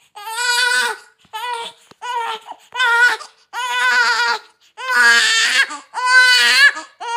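Newborn baby crying: a run of about seven loud wails, each lasting under a second, with short breaths between them.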